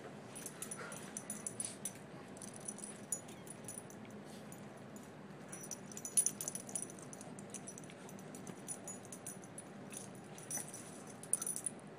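Boston terrier puppies wrestling and humping on a cloth couch: faint rustling and scuffling, with light metallic jingling from a collar in short runs every few seconds.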